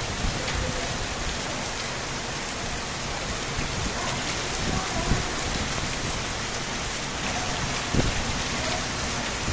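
Heavy rain falling steadily, an even hiss with a few louder drops tapping through it.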